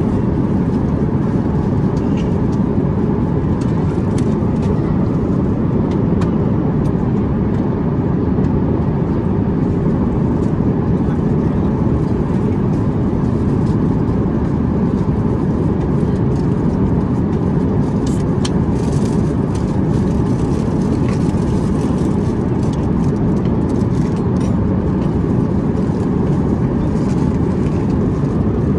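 Steady low roar of an airliner cabin in flight, the engines and rushing air running without change. A few faint clicks come about two-thirds of the way in.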